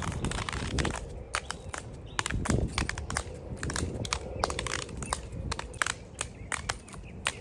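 An ankle skip toy swung round one leg and jumped over, giving an irregular run of sharp clicks and knocks, several a second, mixed with footfalls.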